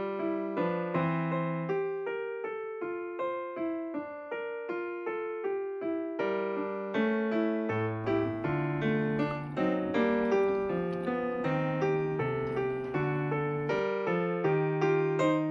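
Background piano music: a melody of struck notes, each fading after it is played.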